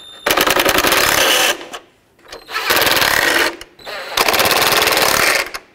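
Impact driver with a 10 mm socket hammering in three bursts, each about a second long, running the tow mirror's mounting studs down into the mirror base until they bottom out.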